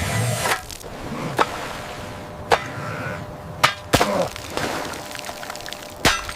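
Five or six sharp cracking knocks at uneven intervals, with some splintering or crunching between them.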